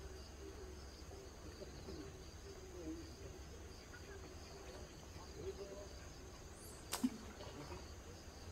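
Faint steady high-pitched insect chirring over a low background hum, with one sharp click about seven seconds in.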